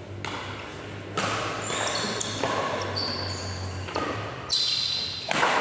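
Badminton rally: rackets strike the shuttlecock about five times, roughly a second apart, each hit sharp and echoing in the hall. Between the hits come high squeaks from players' shoes on the court.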